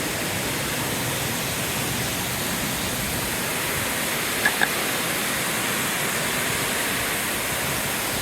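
Waterfall rushing in a steady, even roar of falling water. Two brief faint high blips about four and a half seconds in.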